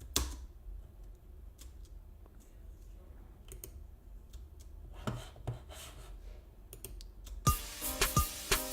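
Scattered, faint computer keyboard and mouse clicks. About seven and a half seconds in, the reggaeton beat being built starts playing back loudly, with evenly spaced drum hits and pitched synth notes.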